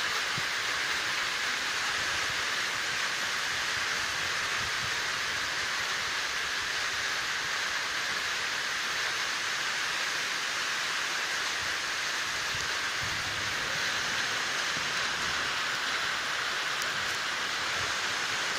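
Steady rain falling on rooftops and garden plants, an even, unbroken hiss.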